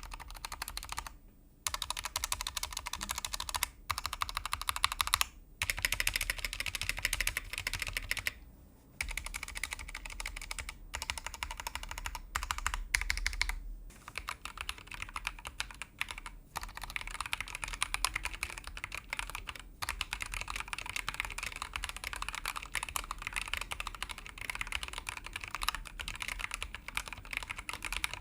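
Typing on a Glorious GMMK2 65% mechanical keyboard with stock Glorious Fox linear switches and OEM-profile double-shot ABS keycaps. Fast runs of keystrokes are broken by several short pauses. The factory-lubed clip-in stabilizers sound pretty bad and could use some tuning.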